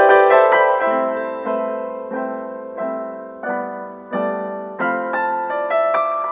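Background piano music: a gentle melody of single notes and chords struck about every half second to second, each fading away before the next.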